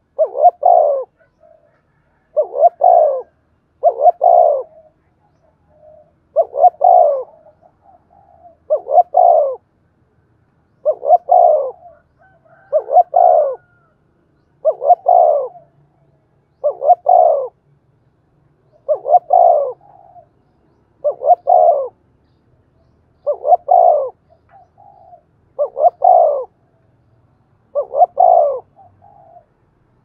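Spotted dove cooing: short phrases of a few quick pulses, repeated about every two seconds. It is the rapid 'thúc' cooing that Vietnamese dove keepers use to provoke and draw in wild doves.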